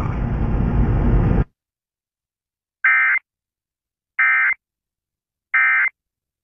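Emergency Alert System end-of-message code: three short, identical bursts of two-tone data warble, each about a third of a second long and evenly spaced about a second and a third apart, marking the end of the alert test. They follow a second and a half of noisy background that cuts off abruptly.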